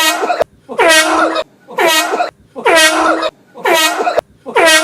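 Air horn sounded in a quick series of loud, pitched blasts, about one a second: five short blasts, with a sixth beginning near the end.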